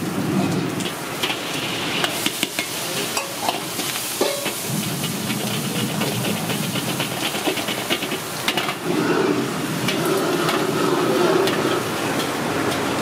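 Diced vegetables sizzling in a hot wok while they are stir-fried, a metal ladle scraping and clinking against the wok again and again.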